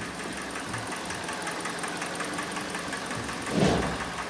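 Kia Sportage SL's G4NA 2.0-litre four-cylinder petrol engine running steadily, heard from outside the car, with a knock that the mechanic puts down to scuffed cylinder walls. A brief louder swell comes near the end.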